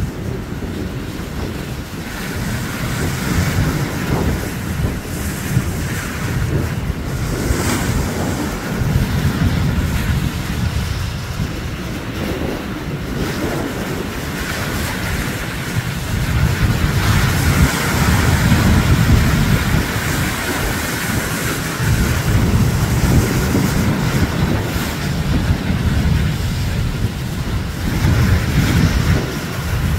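Ocean surf breaking and spraying against shoreline rocks, with wind buffeting the microphone as a low rumble; it grows louder about halfway through.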